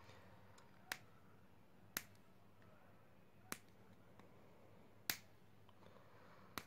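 Five sharp, irregularly spaced clicks of small tools and parts being handled while a smartphone is taken apart, over a faint steady electrical hum.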